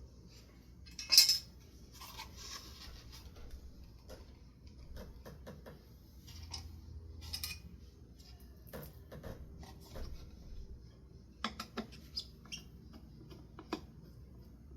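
Handling noises from ceiling fan parts: scattered clinks and taps of hard parts being picked up and set down. A short loud rustle comes about a second in, and a quick cluster of clicks near the end.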